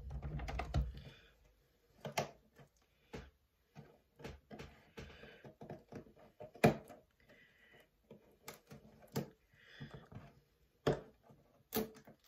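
Hands handling and opening packaging: irregular clicks, taps and knocks with short spells of rustling, and a low bump in the first second.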